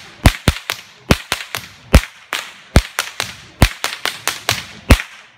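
A whip being cracked again and again in quick rhythmic runs, about twenty sharp cracks, some much louder than others.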